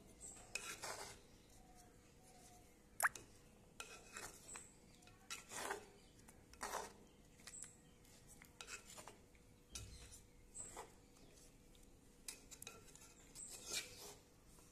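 Coconut-shell ladle stirring thick mango curry in a clay pot. It makes a run of soft, irregular scraping strokes against the pot wall, with one sharp knock about three seconds in.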